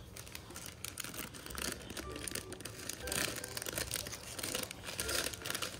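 Clear plastic Lego parts bags crinkling and rustling as hands handle them and reach in among the pieces, a little louder in the second half.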